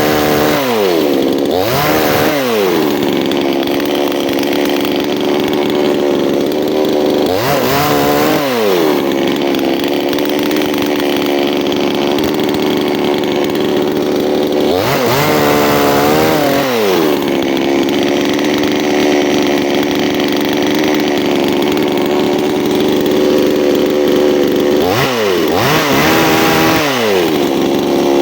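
Two-stroke chainsaw engine running steadily, revving up and falling back about five times.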